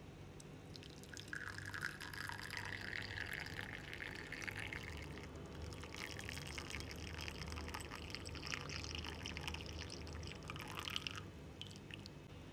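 Karak chai (milky tea) poured in a thin stream from a thermos jug into a small glass tumbler, the pouring sound rising in pitch as the glass fills. The stream stops about eleven seconds in, followed by a few last drips.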